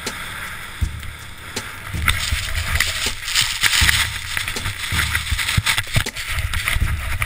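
Wind and blowing snow buffeting a skier's helmet-camera microphone in an avalanche: low, gusty buffeting under a hiss that grows louder about two seconds in as the powder cloud engulfs the camera.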